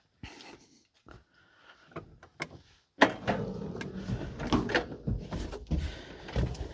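Scattered faint clicks and knocks, then from about three seconds in a louder run of clunks, clatter and rustling: handling and door-like noises of someone getting onto the John Deere 4030 tractor before starting it.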